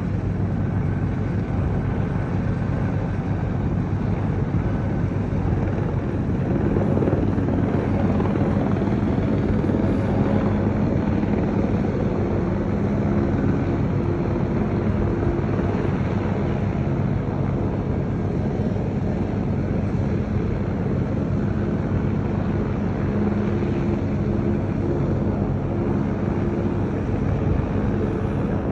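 Steady low rumble with a faint droning hum that comes through more clearly about twelve seconds in: wind and engine noise of a large cruise ship manoeuvring to dock.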